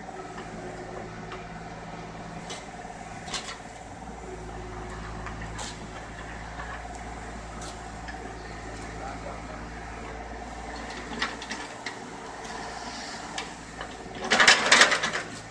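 Mini excavator engine running steadily, with scattered light clicks of machinery at work. Near the end comes a loud burst of scraping and clattering lasting about a second.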